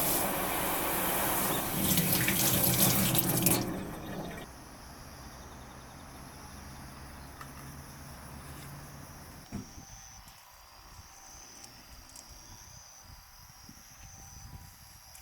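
Water running, as from a tap, loudly for about the first three and a half seconds and then cut off. After that only a faint steady hiss with thin high tones remains.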